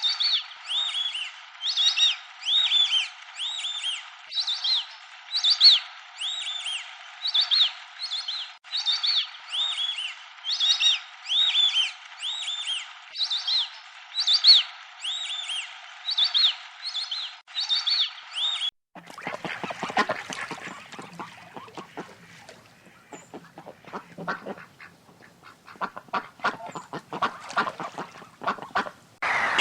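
Ducks quacking: quick repeated calls, each arching in pitch, coming one after another. About two-thirds of the way through, the calling stops suddenly, giving way to a quieter stretch of irregular soft clicks and patters.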